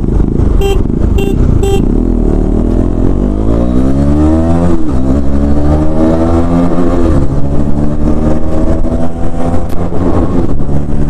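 KTM Duke 250's single-cylinder engine accelerating hard in a drag run, its pitch climbing through the gears with upshifts about five and seven seconds in, over wind rushing on the microphone. Three short beeps sound near the start.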